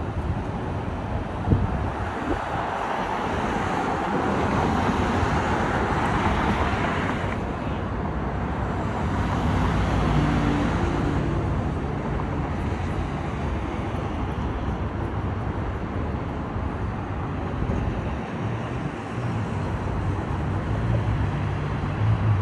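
City street traffic: cars going by in a steady rush, louder for the first several seconds before dropping off suddenly, with a sharp knock about a second and a half in.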